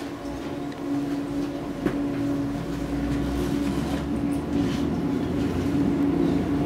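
Seoul Metro 2000-series subway train with GEC chopper control pulling away and gathering speed: a steady hum from the traction equipment over a low wheel-and-rail rumble that grows louder, with a single click about two seconds in.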